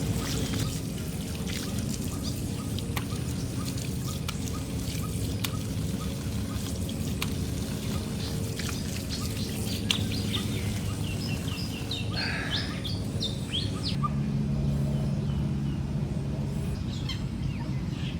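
Small birds chirping outdoors: a run of short chirps mid-way and a quick burst of notes about two-thirds of the way through, over a steady low hum that grows a little stronger near the end.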